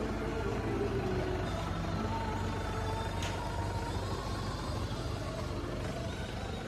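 A motor vehicle's engine running steadily with a low rumble, with a single faint click about three seconds in.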